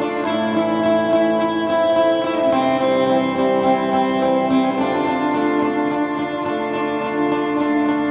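Background music led by guitar, with chord changes every couple of seconds.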